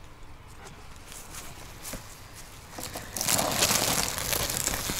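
A few light clicks, then from about three seconds in a crinkling, crackling rustle from a beehive being handled: its covers and frames moved by hand.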